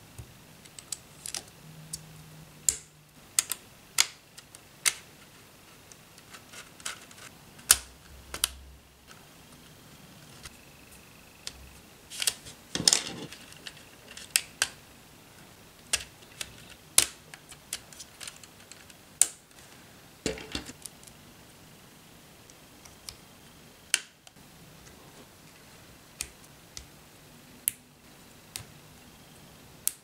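Lego Technic pins and axles snapping into beams, giving sharp, irregular clicks one at a time, with a quick run of several clicks a little before halfway.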